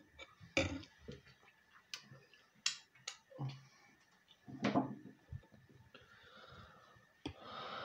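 Metal spoon clinking lightly and irregularly against a ceramic bowl of dumplings in broth, with eating sounds between the clicks and a brief murmur of the eater's voice about halfway through.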